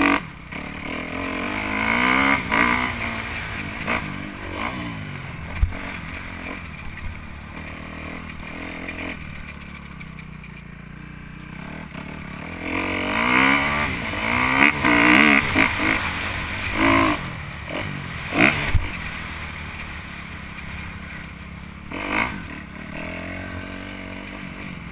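Dirt bike engine being ridden, revving hard and easing off in waves. It opens up strongly about two seconds in and again around halfway, with a few sharp knocks and clatter from the bike over rough ground, heard from the rider's helmet.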